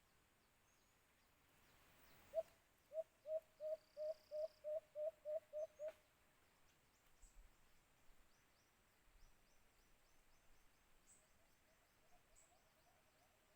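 White-eared brown dove cooing: a run of about eleven short, low, evenly spaced coos, about three a second, the first the loudest. A fainter series of similar coos comes near the end, from a second, more distant dove.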